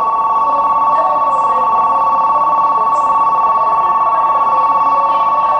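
Station platform's electronic departure bell ringing steadily on two pitches, the signal that the train standing at the platform is about to leave.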